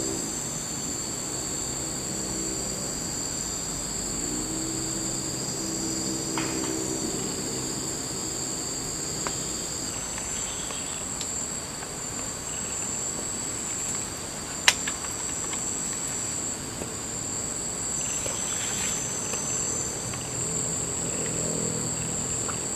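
Steady chorus of insects, an even high-pitched buzzing that holds throughout, with a low hum that rises and fades a few times underneath. A single sharp click about two-thirds of the way in is the loudest sound.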